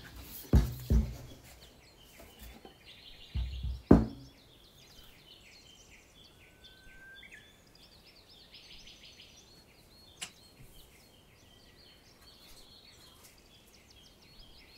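A few sharp knocks and thumps in the first four seconds as the frozen yule log is worked out of its mould, then small birds chirping faintly in the background.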